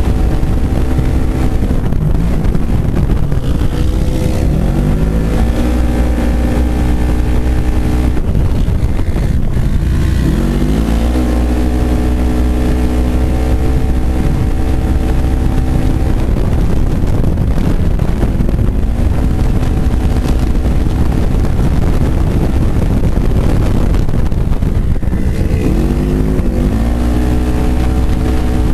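A 900-class side-by-side race car's engine, heard from inside the cockpit at racing speed. The revs drop through the corners and climb again each time it accelerates onto a straight, several times in a row, over a heavy low rumble of wind and running gear.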